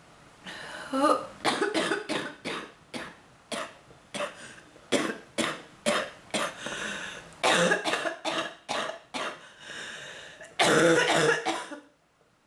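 A woman with bronchitis in a coughing fit: about twenty harsh coughs in quick succession, with a longer, louder run of coughing near the end that stops suddenly.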